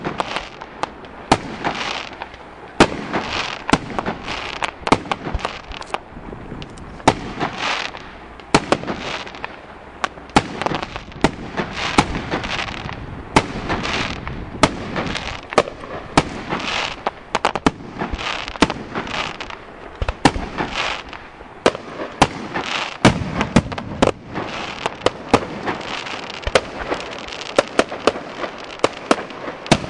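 Aerial fireworks shells bursting in quick succession: a steady stream of sharp bangs, several a second, with crackling and hissing in between.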